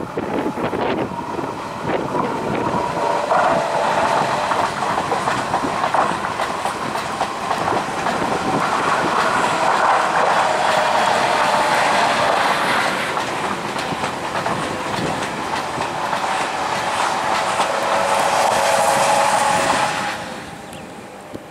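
Renfe Talgo passenger trainset running past, its wheels clattering over the track with a steady whine over the top. It is loud through most of the pass and drops off sharply near the end as the rear power car goes by.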